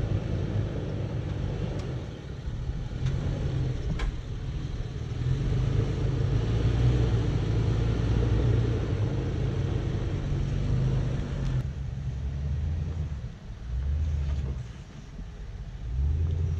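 Toyota FJ Cruiser's 4.0-litre V6 running at low revs as it crawls over rocks and dirt, with sharp knocks about two and four seconds in. About twelve seconds in the sound changes abruptly to a lower, duller engine rumble from a second SUV creeping over the trail.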